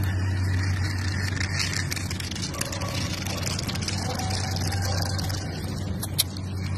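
A steady low hum, like an engine running.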